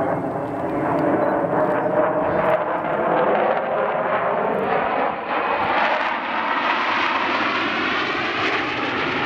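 Four F-16 Fighting Falcon jets flying past in close formation, their jet engines making a steady loud rush with a faint whine that slowly falls in pitch. About six seconds in, the noise turns brighter and hissier.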